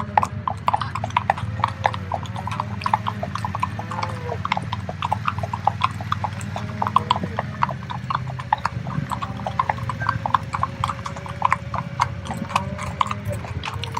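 Hooves of many horses clip-clopping on hard ground in a dense, irregular patter, over a steady low hum.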